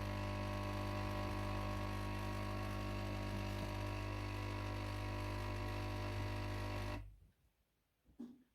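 Pod coffee machine's pump running with a steady buzzing hum, then cutting off suddenly about seven seconds in as the brew finishes.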